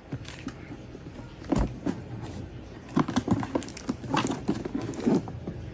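Cardboard product box being handled and turned over in the hands: irregular soft rubbing, scraping and light knocks.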